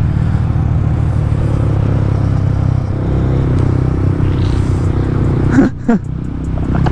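Yamaha R15's single-cylinder engine running steadily while riding. Its level drops briefly near six seconds and then builds back up.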